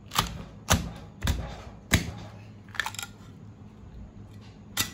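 Heavy cleaver chopping through a fish head into a thick wooden chopping block: four sharp chops about half a second apart, then a lighter knock midway and another chop near the end.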